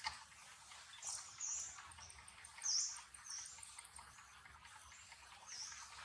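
Birds chirping faintly: five short, very high chirps spread over a few seconds, the loudest about three seconds in, with a faint, fast, even ticking call behind them.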